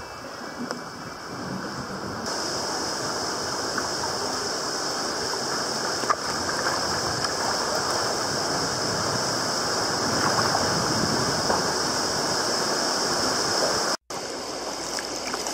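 Sea water washing and sloshing against rock around a sea kayak, a steady rushing wash with one sharp tick about six seconds in. The sound jumps louder about two seconds in and drops out completely for a moment near the end.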